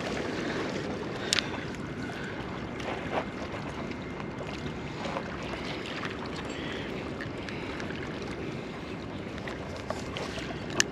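Steady wind and sea noise on the microphone, with a few sharp clicks from the rod and reel being handled, the loudest about a second in and just before the end.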